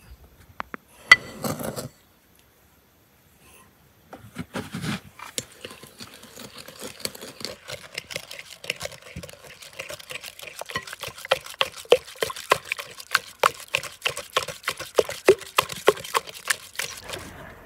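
Spiral coil whisk beating a runny yellow mixture in a glass bowl: quick rhythmic clinks of the wire against the glass, about three a second, over a light sloshing of the liquid.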